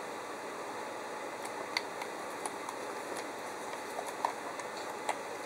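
Small, scattered clicks and taps of a plastic cable modem case being handled and turned over in the hands, starting about a second and a half in, over a steady hiss.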